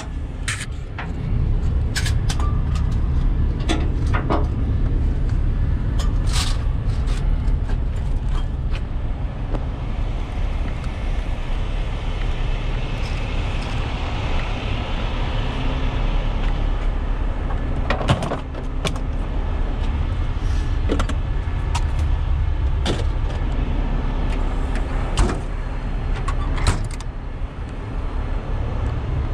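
A truck engine idling steadily, with scattered knocks and clatters from straps and rigging being handled. A hiss runs for several seconds in the middle.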